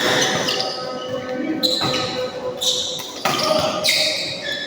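Badminton doubles rally: rackets striking the shuttlecock and players' shoes squeaking and thudding on the court floor, echoing in the hall. Short high-pitched squeaks break in every second or so.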